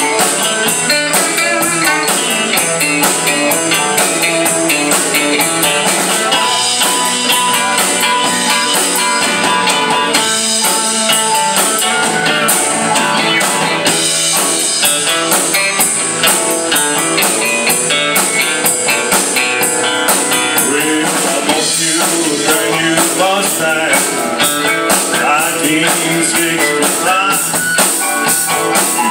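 Live band playing through a PA: electric guitar, bass, keyboard and drum kit, with some singing, loud and steady.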